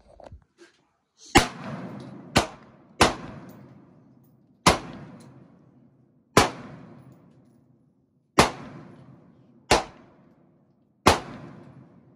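Handgun fired eight times at an uneven pace, each shot sharp and followed by a long echoing tail.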